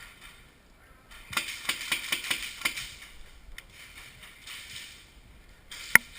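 Airsoft guns firing: a rapid string of sharp clacks starting about a second in and lasting about a second and a half, a few scattered shots after, and one louder, sharper crack near the end.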